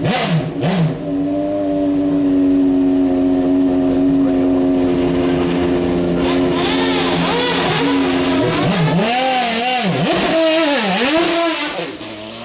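Maserati MC12 GT1 race car's V12 engine: a couple of quick throttle blips, then idling steadily for several seconds, then revved hard up and down again and again. Near the end the car pulls away with wheelspin and the sound falls away.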